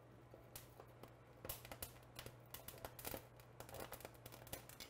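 Faint, irregular crackling and popping of poblano pepper skins charring over a gas stove flame, a sign the skin is blistering, with light clicks of metal tongs turning the peppers, under a low steady hum.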